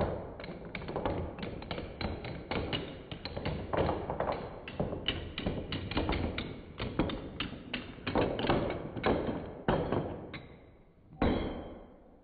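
Rapid run of hard knocks and clacks from metal padlocks being handled and set against each other and the table, several a second, ending with one last louder knock near the end.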